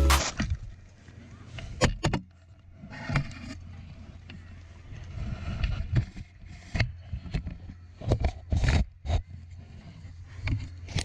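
Music cuts off right at the start. Then a snowboard scrapes and chatters over snow, with irregular sharp knocks and scrapes over a rushing hiss, heaviest about eight seconds in.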